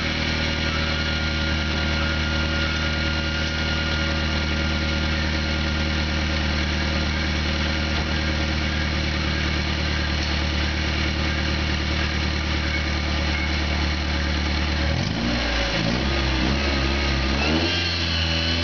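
1998 Honda Civic four-cylinder engine running at a steady idle during a test run. About 15 seconds in, its speed rises and falls a few times before it settles again.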